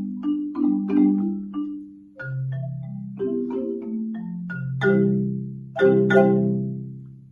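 Three xylophones played together with mallets: quick struck notes over lower notes that ring on. Near the end come two loud chords that ring and die away as the piece finishes.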